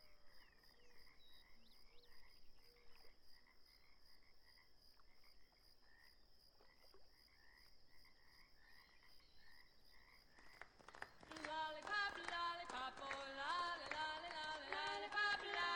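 Faint lakeside evening ambience: frogs croaking at an even pace under a steady high insect trill. About eleven seconds in, a cappella vocal music starts and becomes the loudest sound.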